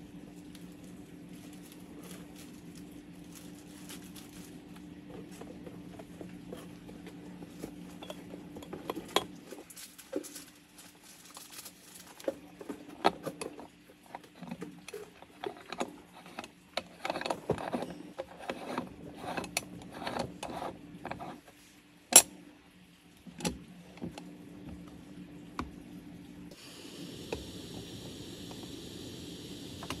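Irregular clicks and clinks of small hard objects being handled, with one sharp click louder than the rest about two-thirds through. A steady low hum underlies the first third, and near the end a steady hum and hiss come in.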